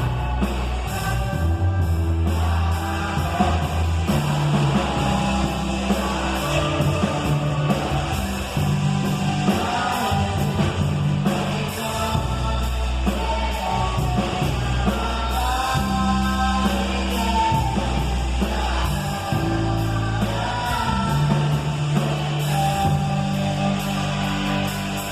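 A band playing a rock-style song: a singer over steady drums and a bass line.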